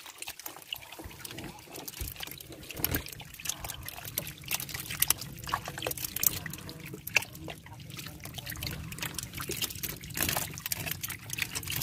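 A heap of freshly caught eel-tail catfish squirming and slapping wetly against each other and the hull: many small irregular squelches, slaps and drips. A low steady hum runs underneath from about two seconds in.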